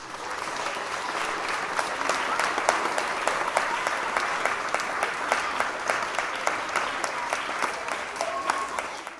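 Applause from a crowd, with the children of the choir clapping too: many dense, quick hand claps that start all at once and cut off suddenly near the end.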